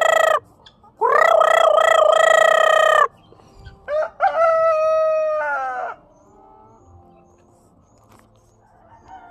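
Rooster crowing: the tail of one crow, then two long crows about a second apart, the second falling in pitch at its end.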